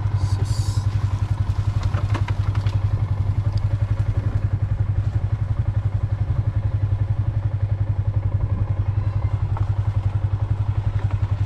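Small motorcycle engine running at a steady speed with an even, rapid pulse, heard from on board.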